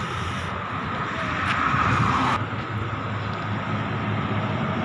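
Highway traffic running steadily: a rush of passing vehicles with a low hum, swelling and then dropping abruptly about two and a half seconds in.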